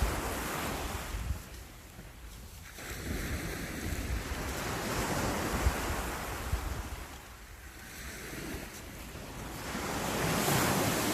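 Sea waves breaking and washing up on a beach, swelling and easing off in about three surges, with wind buffeting the microphone.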